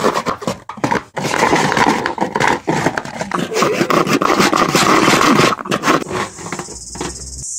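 A hand saw cutting through a white plastic cistern cover panel in quick back-and-forth strokes, getting quieter near the end.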